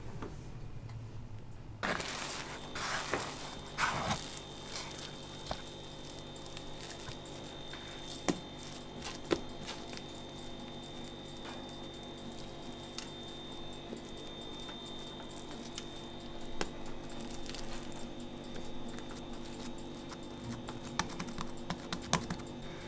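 Hands handling and shaping soft dough: squishing, tearing and light knocks on the counter, with scattered small clicks, starting about two seconds in, over a faint steady hum.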